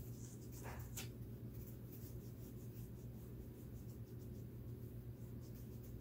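Faint scratching of a pencil on paper, with a few short strokes about a second in and softer ones after, over a steady low electrical hum.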